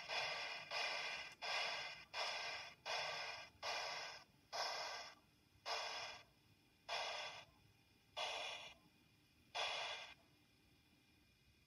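Steam exhaust chuffs from the QSI Titan sound decoder in a brass Gem PRR E6s 4-4-2 model locomotive, played through the model's speaker. The chuffs slow steadily from under a second apart to over a second apart as the engine comes to a stop, the last about ten seconds in.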